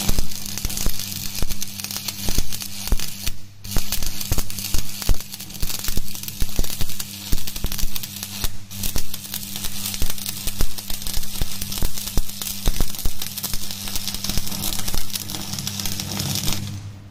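Stick (shielded metal arc) welding of a T fillet joint: the electrode's arc crackles steadily with a steady low hum under it. The arc breaks off briefly twice, about three and a half and eight and a half seconds in, and stops near the end.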